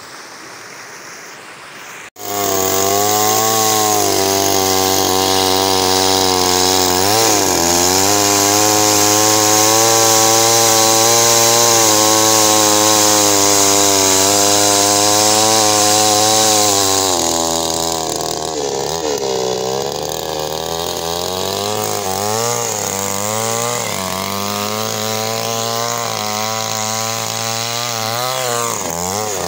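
Chainsaw ripping a log lengthwise into planks. It comes in suddenly about two seconds in and runs steadily under load. From a little past halfway it is quieter, its pitch rising and falling.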